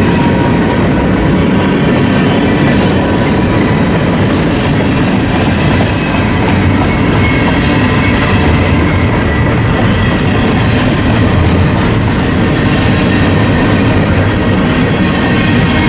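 Train rolling past at close range: a steady loud rumble of wheels on rail with clicking over the joints and faint steady squeal tones above it.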